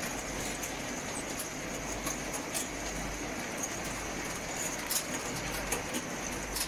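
Vegetable washing line's wire-mesh conveyors running: a steady machine noise with a faint high whine and scattered light clicks.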